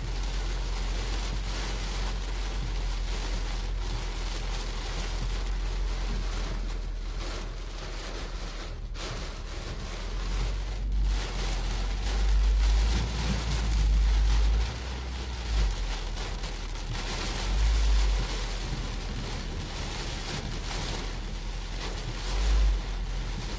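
Hailstones and heavy rain pelting a car's roof and windscreen, heard from inside the car as a dense clatter of hard hits. Under it runs a low rumble that swells several times.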